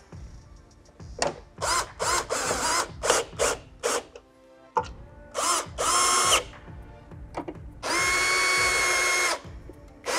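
Cordless drill-driver driving screws to fasten a new rear bumper bracket to the car body: several short trigger bursts of its motor whine, then a longer run at steady pitch for about a second and a half near the end.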